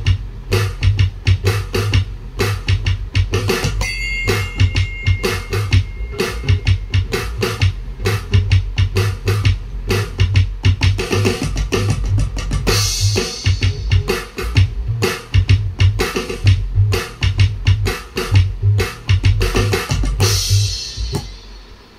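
Alesis Strike MultiPad played with drumsticks, sounding an electronic drum kit in a steady shuffle groove of kick and snare hits. A short high two-note tone sounds about four seconds in, and cymbal crashes wash over the beat twice, midway and near the end, before the sound dies away.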